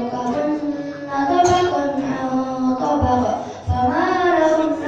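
A child's voice reciting the Qur'an in melodic qiroah style, holding drawn-out notes and ornamenting them with pitch turns that rise and fall.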